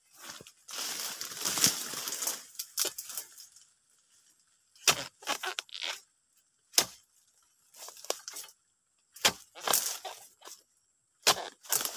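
Dry palm fronds rustling, then a harvesting chisel hacking at an oil palm's fruit-bunch stalk in roughly ten sharp, irregularly spaced chops.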